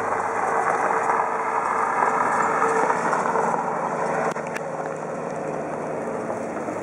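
A vehicle running, a steady rushing noise with no clear engine note. There is a short click about four seconds in, after which it is a little quieter.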